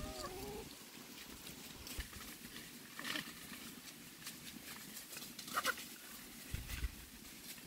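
Chickens in dry leaf litter: faint rustling and scratching of leaves, with a few short chicken calls, the clearest about five and a half seconds in.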